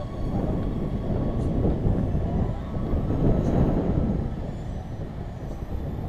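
Wind buffeting the camera's microphone: a low, uneven rumble that swells about three seconds in and eases off near the end.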